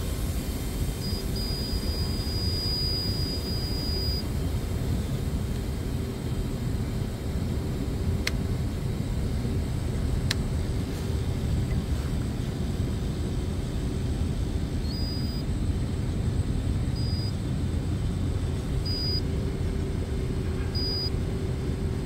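Steady low rumble of background machinery with a faint hum, over which an electronic insulation tester (megger) set to 1000 volts beeps: one long beep about a second in, then short beeps about every two seconds in the second half. Two faint clicks come in the middle.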